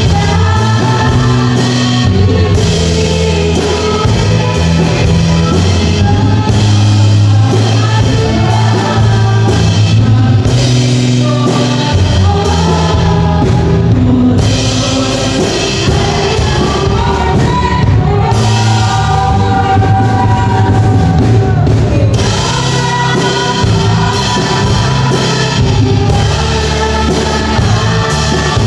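Live worship band playing a praise song: a woman sings lead over electric guitar, keyboard and drum kit, with a steady bass line underneath.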